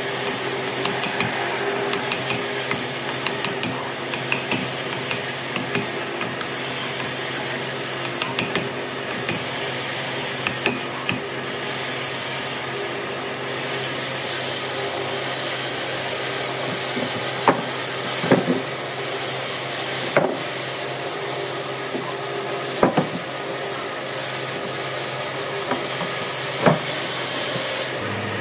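Steel chisel struck with a wooden mallet and worked into a log, chopping out mortises: scraping and small taps, then several sharp knocks spread through the second half, over a steady hum.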